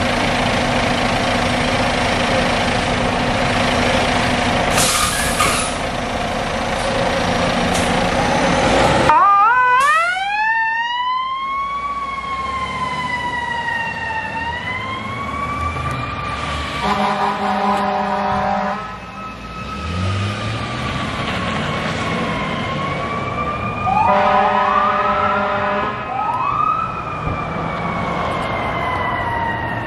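Fire engine's diesel running as it pulls out, with a short hiss about five seconds in, then its siren winds up about nine seconds in and wails slowly up and down. Two blasts of the air horn come through the siren, one around the middle and one about two-thirds of the way through.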